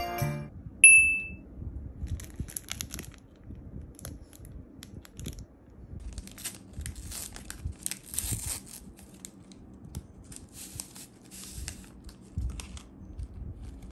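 Paper tea-bag sachet being torn open and crinkled by fingers, in a run of short rustling tears and crackles; one brief ringing ping about a second in.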